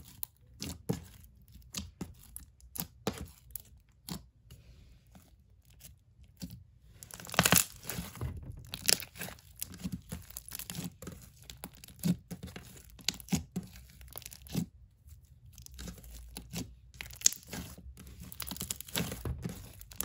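Store-bought Elmer's slime being squeezed, stretched and poked by hand, making irregular sticky crackles, clicks and small pops, with the loudest crackling about halfway through.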